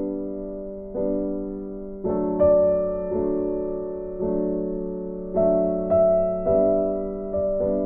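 Slow background music on a piano-like keyboard: notes and chords struck about once a second, each left to fade.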